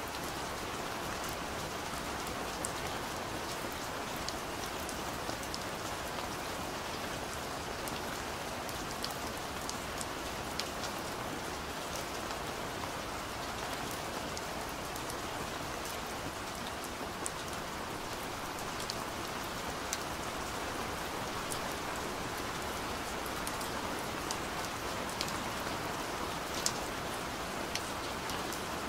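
Steady rain: an even hiss of rainfall with scattered light ticks of single drops.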